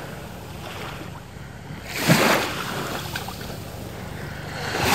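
Small waves washing up onto a sandy beach at the water's edge, swelling twice: about two seconds in and again near the end.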